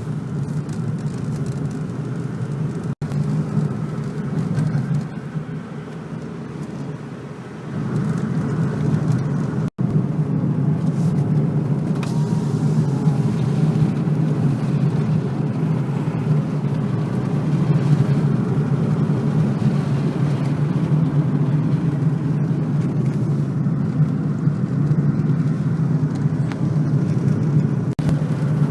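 Car driving on a road: a steady low engine and road rumble, which gets louder about eight seconds in, broken by two split-second dropouts.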